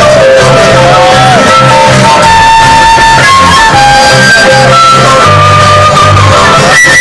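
Live acoustic string music: an acoustic guitar strumming a steady rhythm under a mandolin melody of long held notes that step up and down.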